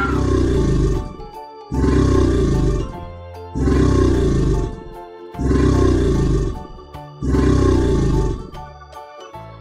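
Crocodile growling: five low roars, one about every two seconds, over soft electronic organ music.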